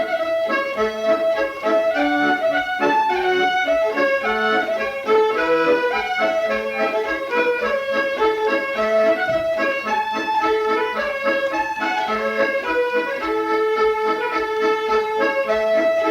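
Accordion playing a tune, a quick-moving melody over an evenly pulsing bass accompaniment.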